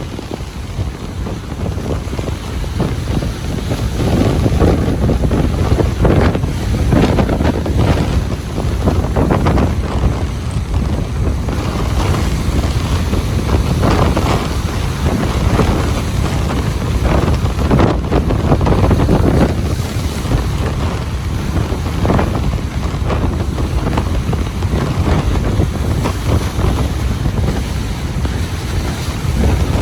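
Ocean surf breaking and washing on a beach, in swells that come and go every few seconds, over a constant low rumble of wind buffeting the microphone.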